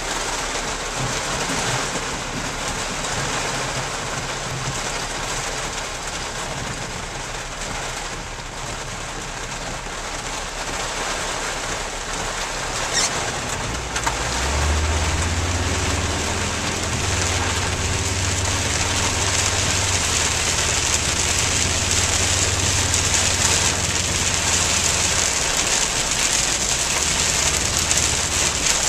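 Heavy rain pounding on a moving car and its windshield, with tyre spray hissing off a flooded road. About halfway through, a low steady drone from the car's road and engine noise joins underneath.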